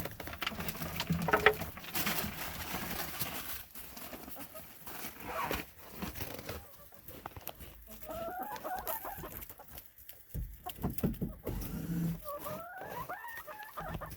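Backyard hens clucking, with two drawn-out calls that rise and fall in pitch in the second half, among light clicks and rustling.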